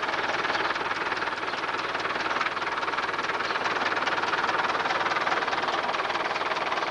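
Farm machinery running steadily, a tractor and the machine it drives, making a dense mechanical din with a fast rattle.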